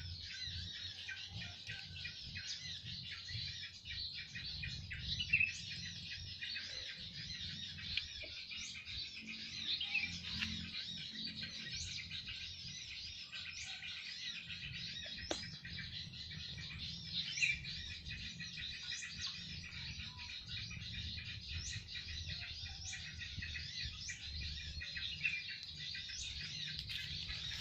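Many small birds chirping and twittering together, a dense, continuous chorus of short high calls with brief rising notes.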